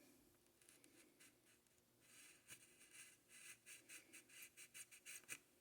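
Faint scratching and rustling of small handling noises as tiny model stop signs are worked into the layout's scenery, a quick run of light scrapes from about two seconds in.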